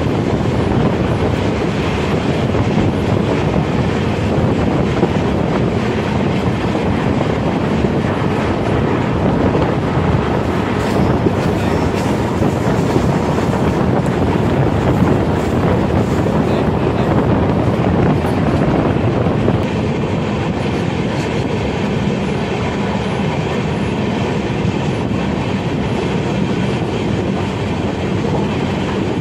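Passenger train running along the line, heard from beside a coach's open window or door: the steady, unbroken rumble of wheels on rail.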